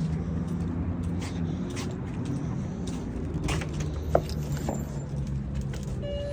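Car engine running steadily with a low hum, and a single sharp click about four seconds in. A steady higher tone, like a car chime, starts near the end.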